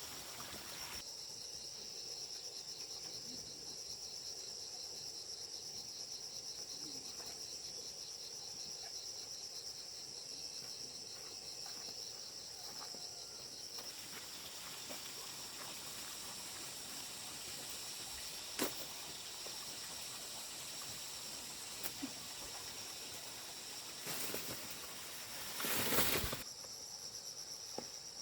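Insects chirring steadily in a high band, with a second, fast-pulsing insect trill for about the first half. A few sharp clicks and a louder burst of noise lasting about two seconds come near the end.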